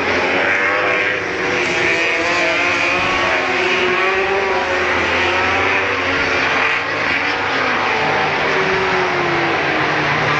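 MotoGP racing motorcycle engines running at high revs, several at once, their pitch rising and falling without a break.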